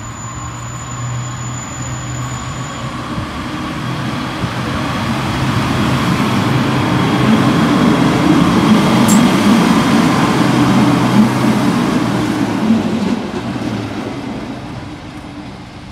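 A CPH railmotor passing close by: its engine and wheels on the rails grow louder to a peak about eight to eleven seconds in, with a few clicks from the wheels over the rails, then fade as it runs away.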